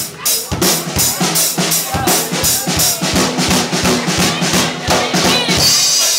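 Live drum kit played in a steady, fast go-go groove, with bass drum, snare and cymbal hits several times a second.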